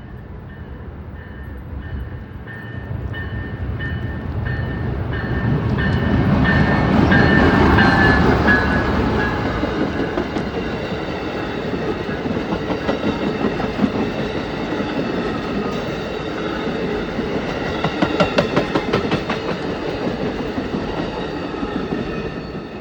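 Amtrak passenger train passing close by. The locomotive's approach builds to its loudest about eight seconds in, with a bell dinging about twice a second. The cars then roll past in a steady rumble, a quick run of wheel clicks over rail joints comes near the end, and the sound eases as the train goes by.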